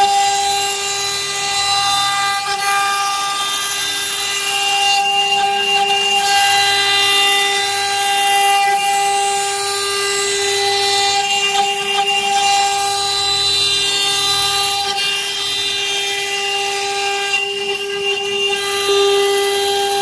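CNC stone-carving router's spindle running at high speed, a steady high-pitched whine with a rough hiss of the bit cutting into stone that swells and fades.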